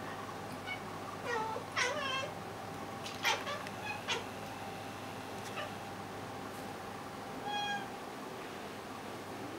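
Domestic cats giving short meows and chirps: a cluster of calls in the first few seconds, then a single held meow about seven and a half seconds in, over a faint steady hum.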